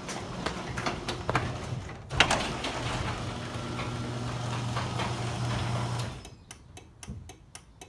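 Liftmaster 1/2 hp screw-drive garage door opener motor running with a steady hum. About two seconds in it cuts out briefly with a loud clunk, then runs again until it stops near six seconds in. After it stops, a rapid, even ticking follows.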